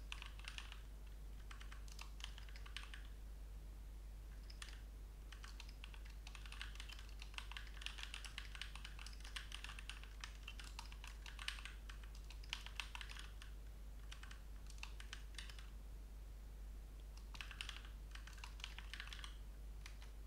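Computer keyboard typing in quick runs of keystrokes broken by short pauses, over a faint steady low hum.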